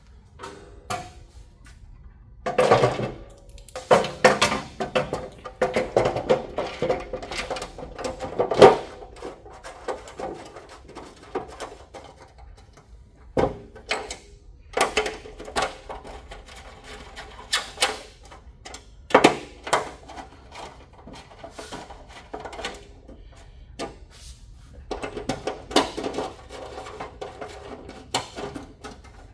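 Hand tools clicking and knocking against the plastic bed frame of a GE Panda infant warmer as fasteners are threaded in. The clicks come in irregular clusters with pauses between them.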